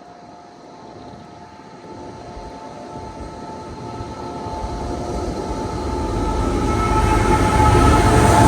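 Diesel-hauled CSX loaded ethanol freight train approaching, its rumble growing steadily louder as it nears, with a few faint steady high tones over it.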